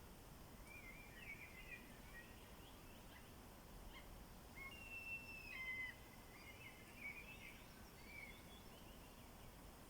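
Faint songbird singing: a short run of quick twittering notes, then a longer phrase of chirps and a few held whistles, over a soft low rumble.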